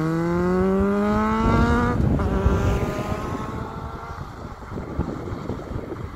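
Suzuki Bandit's inline-four engine through an Akrapovic slip-on exhaust, accelerating with its pitch climbing steadily, shifting up about two seconds in, then climbing again and fading away as the bike pulls off.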